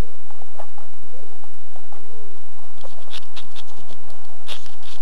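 Handling noise on a small camera's microphone while it is carried across grass: faint soft bumps at first, then from about three seconds in a run of sharp crackling rustles and clicks as the camera is gripped and its lens covered.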